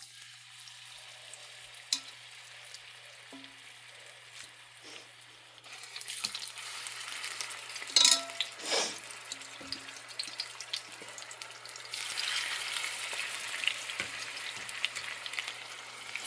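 Marinated tilapia fillets frying in hot oil in a pan, a steady sizzle that grows louder about six seconds in and again near twelve seconds. A sharp knock about eight seconds in.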